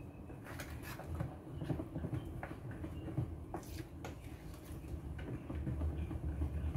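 Wooden spoon folding thick fruitcake batter in a plastic mixing bowl: soft scrapes and light knocks at an uneven pace, over a low rumble that grows louder near the end.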